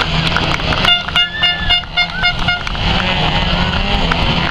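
Engines of large radio-controlled aerobatic planes running steadily as the planes hover nose-up. For about a second and a half near the middle, a high held tone with several notes sounds over them.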